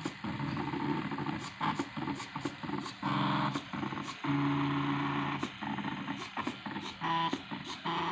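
Stepper motors of a DIY Arduino CNC plotter whining in short moves, each held at a steady pitch that changes from move to move, with sharp clicks between the moves.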